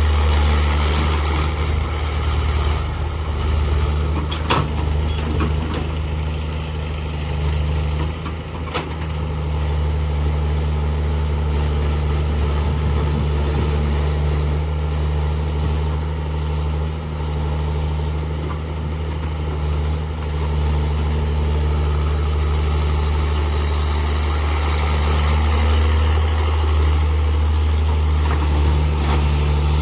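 Heavy-equipment diesel engine running steadily at a low, even drone, with a couple of sharp knocks about four and nine seconds in.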